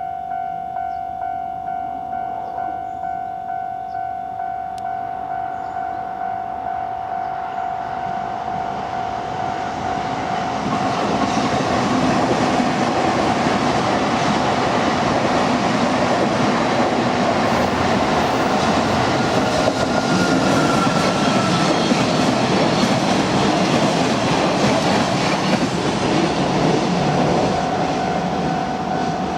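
Japanese level-crossing warning bell ringing in a steady repeating beat. From about ten seconds in, a train passes over the crossing, its wheels and cars rushing loud for some fifteen seconds before easing off near the end, with the bell still ringing until it stops at the very end.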